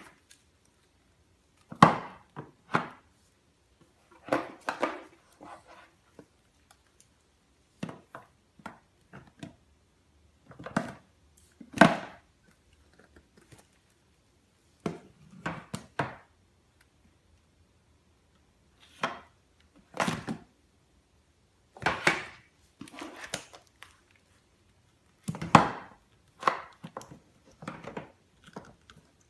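Baby-formula canisters being handled by a baby, knocking and clunking against the cupboard shelf and the floor as they are picked up, shuffled and set down. The knocks come at irregular intervals, sometimes single and sometimes several in quick succession, with quiet gaps between.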